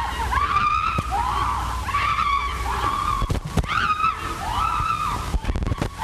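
High-pitched voices crying out again and again in short rising-and-falling calls, over the low steady hum of an early sound-film track.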